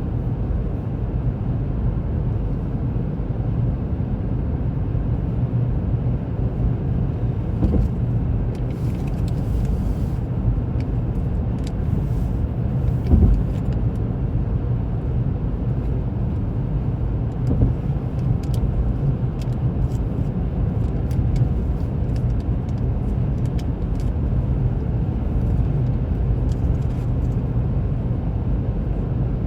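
Steady low rumble of a car driving at road speed, engine and tyre noise heard from inside the cabin, with faint small ticks now and then.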